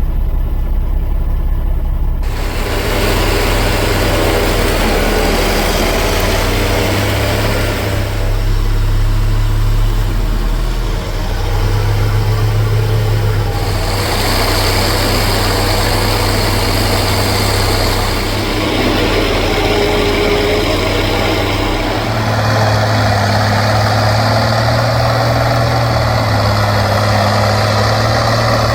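Engines of corn-harvesting farm machinery running steadily with a deep hum and mechanical clatter. The sound shifts abruptly several times.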